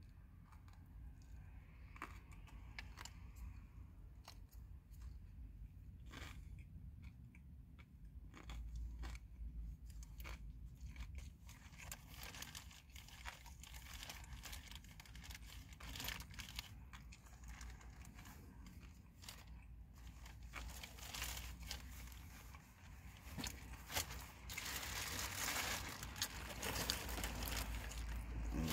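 A person chewing and crunching a homemade taco close to the microphone, with scattered small mouth clicks. About four seconds before the end, rustling and crinkling of a plastic bag starts and grows louder.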